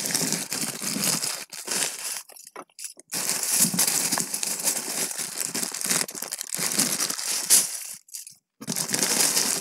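Polythene bags full of small plastic LED caps crinkling as they are handled and shifted, the rustle stopping briefly twice.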